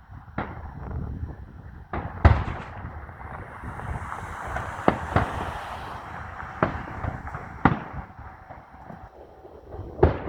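Fireworks going off: a string of sharp bangs at irregular intervals, the loudest about two seconds in, with a crackling fizz between the bangs in the middle.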